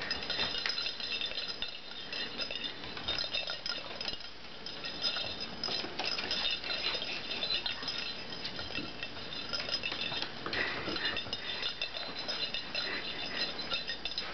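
A small jingle bell on a Maltese puppy's collar jingling in quick, irregular runs of tinkles as the puppy twists and turns his head toward it.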